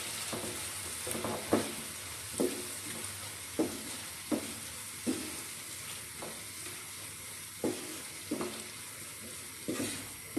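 Capsicum and onion pieces sizzling in hot oil and masala in a frying pan while a wooden spatula stirs them, scraping the pan about once a second.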